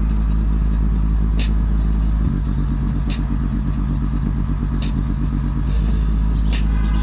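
Bass-heavy music played loud through JBL Xtreme 2 and JBL Charge 4 portable Bluetooth speakers linked together: deep sustained bass notes with a sharp beat about every second and a half to two seconds, and the bass note changes twice.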